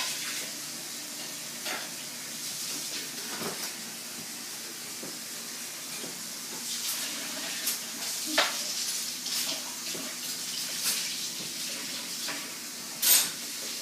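Kitchen tap running into a sink with a steady hiss, while dishes and cutlery clink and clatter now and then; the sharpest clatters come about eight seconds in and near the end.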